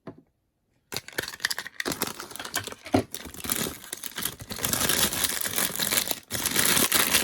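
Plastic wrapping crinkling and packaging rustling as a blind-box figure is unwrapped, a dense crackle with small clicks that grows louder in the second half, after a silent first second.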